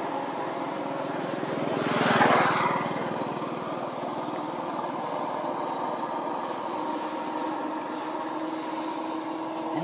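A motor vehicle passing: its sound swells to a peak about two seconds in and fades over the next second, above a steady background hum.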